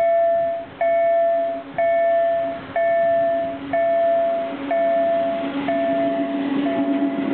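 Level-crossing warning bell ringing about once a second, each strike ringing out and fading, under it the steady hum of an ET22 electric locomotive drawing near with its coal train, growing louder. The bell strikes weaken as the train noise rises in the second half.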